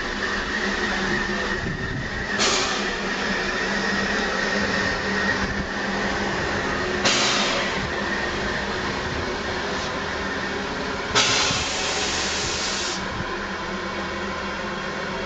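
Standing steam locomotive, Edmonton, Yukon & Pacific No. 107, hissing steadily, with three louder bursts of escaping steam, the last and longest near the end.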